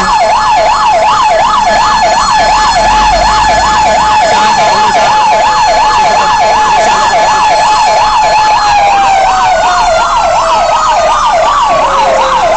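Fire truck sirens sounding. One fast yelp warbles up and down about three times a second, over a steady siren tone that begins sliding slowly down in pitch about eight and a half seconds in.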